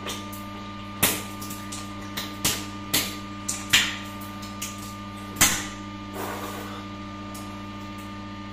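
Irregular sharp cracks and snaps of raw egg being crushed in the mouth, shell and all, about a dozen in all with the loudest near the start, middle and about five seconds in, over a steady hum.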